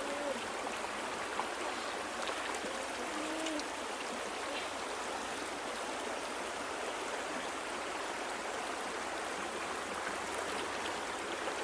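Steady rushing and trickling of a flowing river stream.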